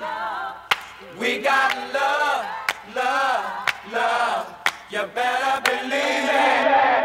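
Song intro: a group of voices singing a wordless, chant-like melody in short rising and falling phrases, with a sharp hit about once a second.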